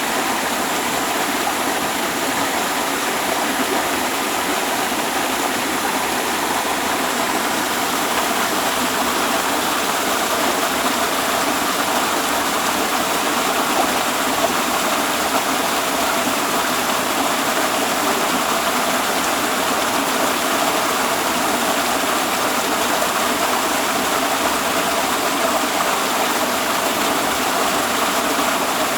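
Waterfall: water rushing and splashing in a steady, unbroken hiss.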